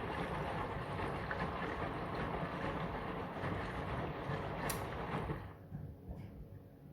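Brandt washing machine on a cotton wash, with water rushing and sloshing in the drum, a brief click, then the rush cutting off about five seconds in.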